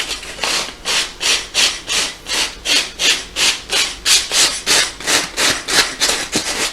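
Sandpaper rubbed by hand over a bonded leather couch in quick back-and-forth strokes, about three a second, scraping away the peeling top layer of the leather.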